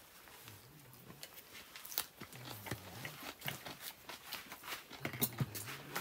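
Scattered clicks and crackles, with faint low voices murmuring a few times.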